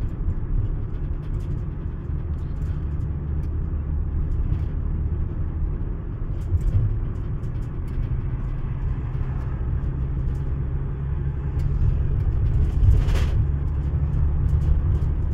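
Steady low road and engine rumble heard inside the cabin of a moving vehicle, with a brief hiss near the end.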